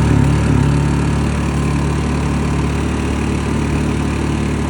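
Predator Super Quiet generator's engine running steadily just after a cold start on the choke.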